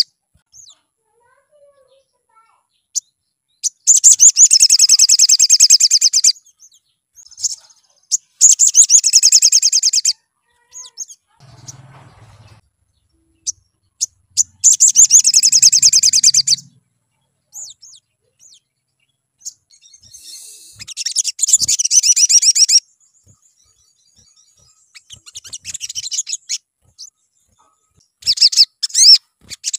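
Olive-backed sunbird song: high, fast trilling phrases of about two seconds each, repeated every few seconds, with short single chips between them.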